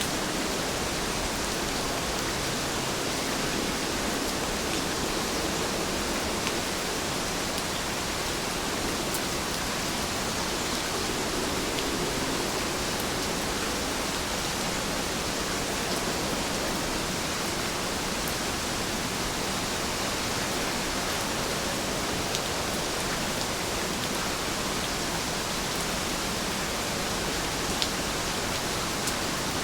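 Steady rainfall: an even hiss of rain with a few faint drop ticks scattered through it.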